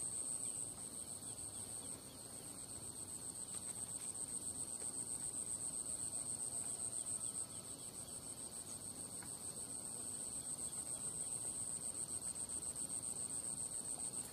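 Steady, high-pitched insect trill, finely and rapidly pulsing, with a fainter lower trill beneath it.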